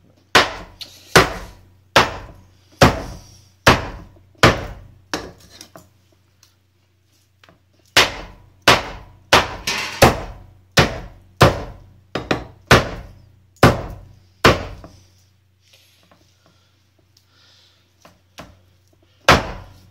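Meat cleaver chopping raw chicken breast on a wooden chopping block: sharp, evenly spaced chops, a little more than one a second. The chops come in two runs with a pause between them, then a single chop near the end.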